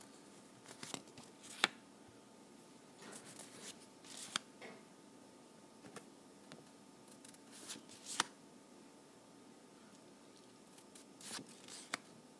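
Faint rustling and short sharp snaps of paper cue cards being handled and swapped, in several brief bursts a few seconds apart.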